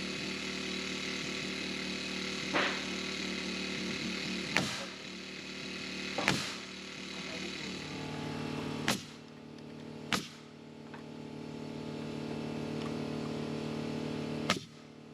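A small engine runs steadily, its pitch shifting about eight seconds in, while a framing nail gun fires six separate shots.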